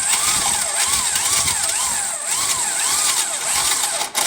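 Electric drill running under load as it bores into a broken high-tensile steel bolt, its whine wavering up and down about twice a second. It dips briefly just before the end.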